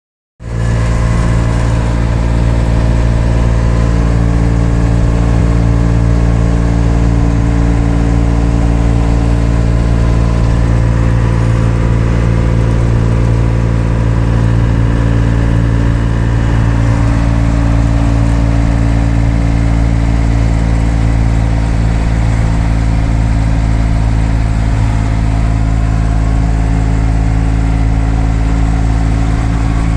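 Perkins diesel engine of a Tarpan 239D pickup running at steady cruising revs, heard from inside the cab: a loud, steady drone that holds one even pitch.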